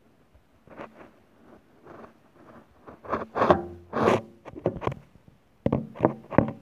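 Handling noise: irregular scraping and rustling as the phone and hand move over the open metal PC case and its wiring. It is loudest in the middle, with a quick cluster of scrapes near the end.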